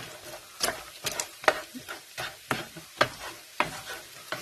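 A utensil stirring and scraping through migas (egg, fried tortilla chips and bacon) in a frying pan, in irregular strokes over a steady sizzle.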